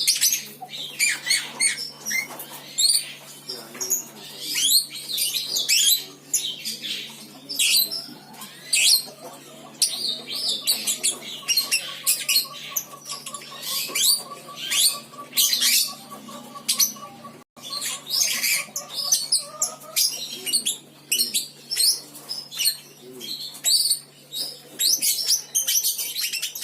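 Lovebird singing a long, varied run of rapid high chirps and trills, with learned fill-in notes woven through. In the middle a steadier, pulsing trill runs for about ten seconds, under a constant low electrical hum.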